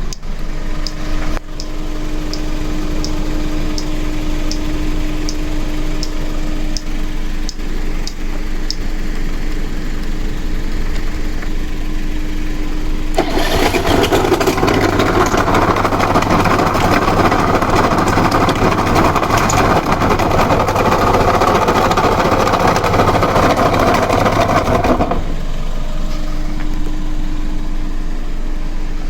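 Suzuki Let's 4 scooter's 50cc four-stroke single-cylinder engine catching and idling, with a faint sharp tick repeating about every half second for the first several seconds. About halfway through it is revved much louder for roughly twelve seconds, then drops back to idle. It is making a loud abnormal noise.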